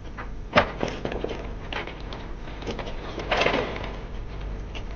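Knocks and clatter: a sharp knock about half a second in, scattered lighter clicks, and a longer scraping rattle at about three and a half seconds, over a low steady rumble.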